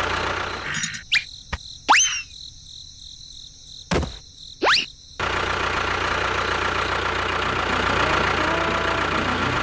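Steady machine or motor sound that drops out about a second in. In the lull come three quick rising whoosh sweeps, a click and a thump, and the steady running sound cuts back in abruptly about five seconds in.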